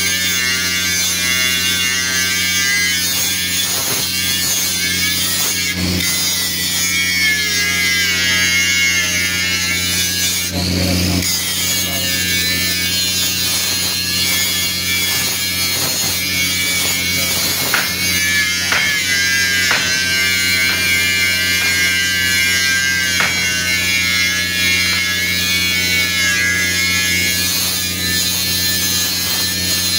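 Handheld electric angle grinder running steadily against the edge of a steel tank bottom plate, grinding it ready for welding fit-up. Its high motor whine wavers in pitch as the disc bites into the metal, over a steady low hum.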